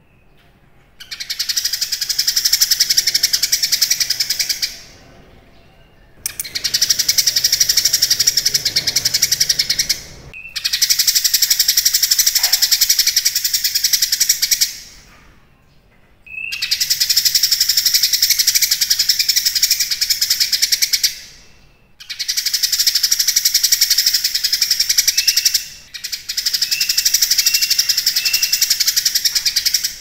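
Caged cucak kinoi singing loud, rapid, high-pitched chattering song in six long runs of about four seconds each, broken by short pauses.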